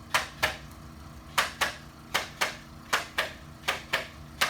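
Sharp double clicks from a chiropractic treatment, repeating at an even pace of about one pair every three-quarters of a second, six pairs in all.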